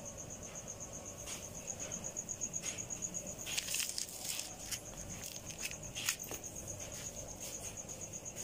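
Crickets chirping in a steady, rapid high-pitched pulse, with scattered short clicks and taps.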